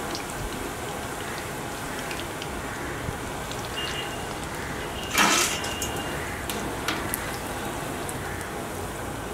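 Chicken pakoras sizzling and crackling in deep-frying oil in an aluminium kadai, a steady hiss with small pops. A brief louder clatter comes about five seconds in.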